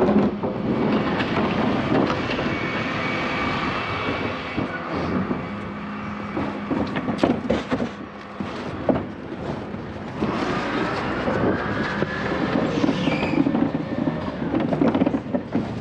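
Dennis Elite 6 refuse truck running close by, with a steady mechanical hum and a whine from its lift and compaction gear that rises and falls about ten seconds in. Scattered knocks from bins and cardboard being handled, several close together around the middle.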